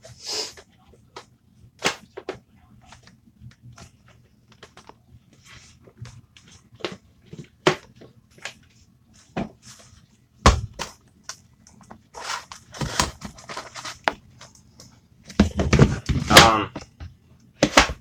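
Plastic parts of a Hoover vacuum cleaner clicking and knocking as they are handled and fitted back together after the filter cleaning. There is a louder knock about ten seconds in, and a denser run of clatter and clicks near the end as a part is pushed to lock into place.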